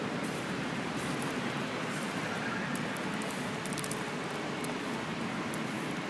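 Steady outdoor city street noise: an even rushing sound with faint scattered ticks.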